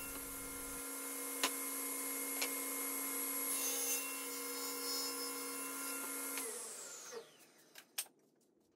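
SawStop table saw running steadily while trimming the overhanging end of a hard maple edge strip off a plywood shelf, with two light ticks a second apart early in the cut. About six and a half seconds in it is switched off and winds down.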